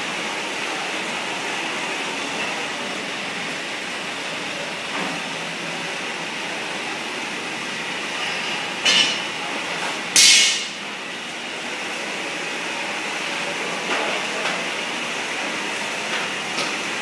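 Vertical continuous band sealing machine running with a steady mechanical whir. Two short, loud bursts of hiss come about nine and ten seconds in.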